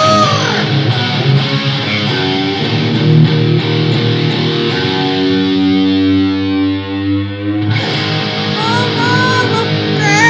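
Rock music with a loud, distorted electric guitar.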